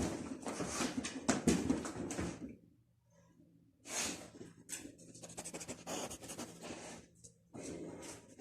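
A dog panting and licking close up, in quick strokes. It stops for about a second a little over two seconds in, then starts again.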